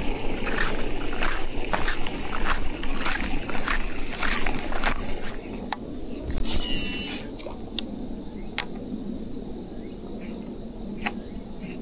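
Outdoor ambience with insects chirping: a quick series of short chirps about twice a second over the first half, then fainter with a few sharp clicks, over a steady high-pitched drone.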